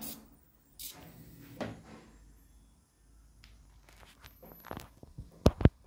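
Handling noise and knocks: a few short rustles, then a run of sharp thumps near the end, the two loudest close together.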